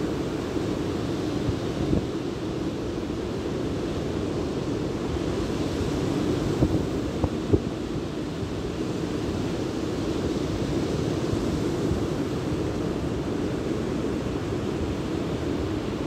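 Wind buffeting the microphone over the steady wash of breaking sea surf, with two brief knocks a little after the middle.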